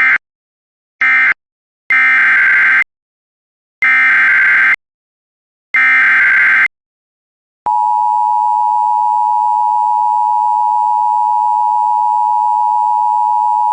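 Emergency Alert System signalling: short digital end-of-message bursts, then three longer screeching data bursts of a new alert's SAME header about two seconds apart. About eight seconds in, a steady attention tone starts and holds.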